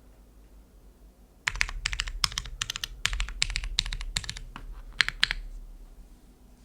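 Typing on a gasket-mounted Neo65 mechanical keyboard with lubed Cherry MX2A Brown tactile switches on a carbon fibre plate and GMK doubleshot ABS keycaps. A quiet start, then a burst of quick keystrokes that stops about a second before the end.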